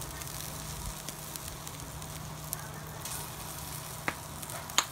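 Sauce-coated chicken breasts sizzling on aluminium foil over a grill: a steady hiss with scattered small crackles, and two sharper pops near the end.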